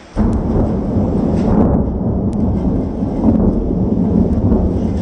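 A nearby thunderclap breaks suddenly just after the start and rolls on as a loud, sustained low rumble.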